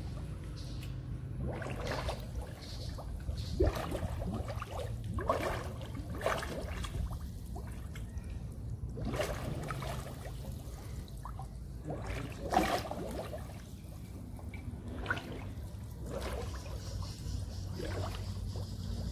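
Bubbles from scuba divers exhaling through their regulators, heard under the water as irregular short bubbling bursts over a low steady hum.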